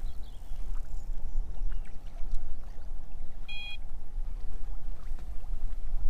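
Wind buffeting the microphone with a steady low rumble, with a few light clicks of handling. About three and a half seconds in, an electronic bite alarm on the rod pod gives a single short beep as a rod is touched.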